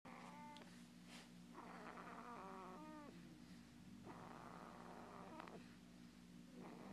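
A baby snoring faintly: rasping breaths come about every two seconds, and some carry a squeaky note that falls in pitch. A steady low hum runs underneath.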